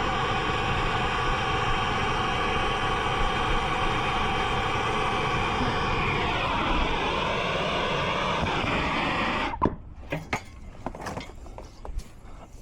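Steady roaring hiss of a brazing torch flame heating the reversing valve's copper joints to free the valve. It is shut off suddenly about nine and a half seconds in, followed by a few metal clicks and knocks.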